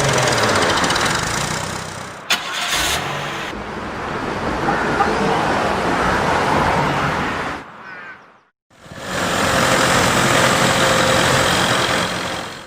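Motor vehicle engine running loudly, with a sharp click about two seconds in. It cuts out to silence about eight seconds in, then comes back at full level.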